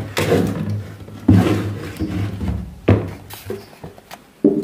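Wooden speaker enclosure being handled and shifted on a table, giving three dull knocks about a second and a half apart.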